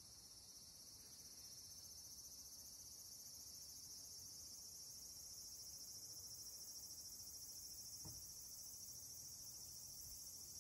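Faint, steady high-pitched chirring of insects, swelling slightly over the first couple of seconds. There is one soft low thump about eight seconds in.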